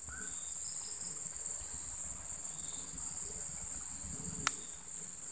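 Steady high-pitched insect chorus, with one sharp click about four and a half seconds in.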